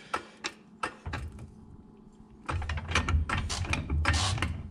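Hydraulic floor jack being worked under a car's rear axle housing: a run of light metallic clicks and clanks, then, from about halfway, a steady low rumble with clicking over it.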